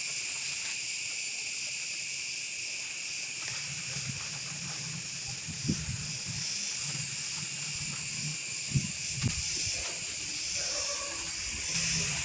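Gloved hands handling soil-filled plastic polybags of mulberry cuttings, with a few short soft thumps over a steady high hiss.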